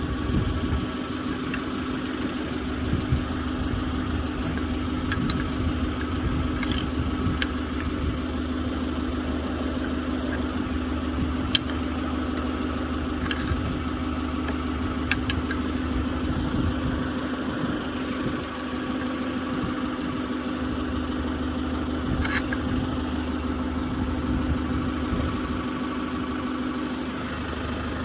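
Forklift engine idling steadily, with a few faint metallic clicks, the loudest about a third of the way in.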